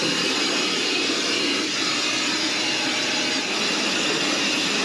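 Cordless handheld blower running steadily, a continuous rush of air blowing dust and debris out of a refrigeration condensing unit's electrical control panel.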